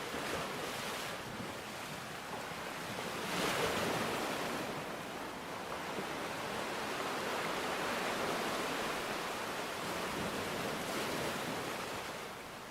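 Continuous rushing water noise that swells and eases, with its strongest surge about three and a half seconds in.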